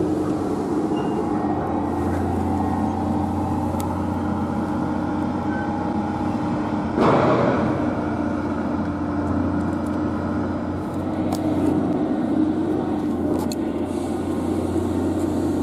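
A motor running steadily, a low constant engine hum, with a brief louder rush about seven seconds in.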